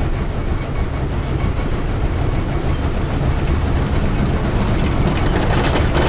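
Steam locomotive and train running: a steady low rumble, with a hiss that grows louder near the end.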